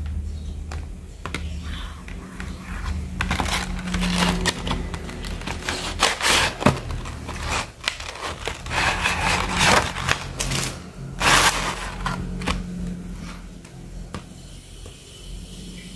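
Hands opening a cardboard sticker box and handling the plastic-sealed sticker packs inside: irregular rustling and crinkling of packaging with sharp clicks and scrapes, in several louder bursts.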